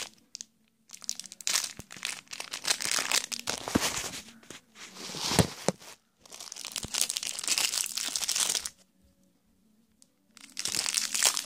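Clear plastic eraser packaging crinkling and tearing as it is unwrapped by hand, in irregular bursts with one sharp knock about halfway through and a short pause near the end.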